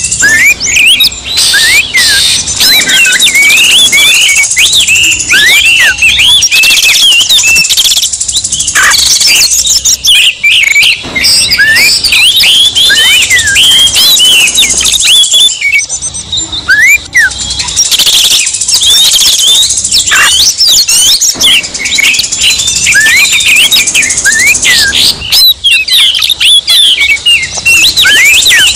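Oriental magpie-robins (kacer) singing loudly in a dense mix of quick overlapping chirps, whistles and rising and falling notes, over a steady high hiss. It is a combined kacer provocation track (pancingan), meant to rouse a kacer into excited song.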